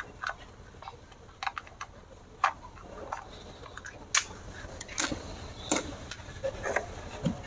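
Irregular sharp clicks and taps of hard plastic being handled, about a dozen over several seconds.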